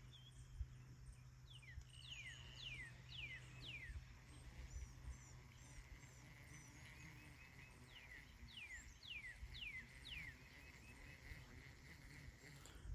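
Faint birdsong: a songbird gives two runs of four or five quick falling whistles, one about two seconds in and another about eight seconds in, with a softer trill between them.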